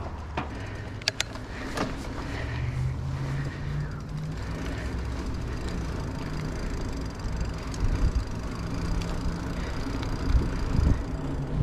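A vehicle engine running, its pitch shifting now and then, over a low rumble, with a few sharp clicks near the start and heavier low knocks later on.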